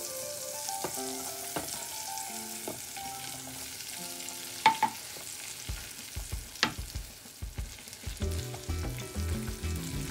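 Sliced onion sizzling as it is sautéed in butter in a pan and stirred, with a couple of sharp clicks partway through.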